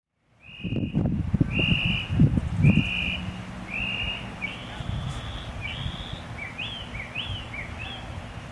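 A bird singing a run of clear whistled notes, about one a second, the later ones quicker rising-and-falling chirps. Gusty wind buffets the microphone underneath, strongest in the first few seconds.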